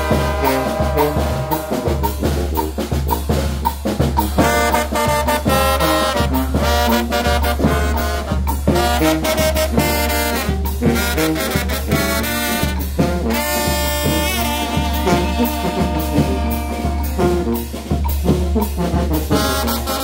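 Mixtec brass band playing a chilena: trumpets and trombones carry the melody over a sousaphone bass line and the steady beat of a drum kit.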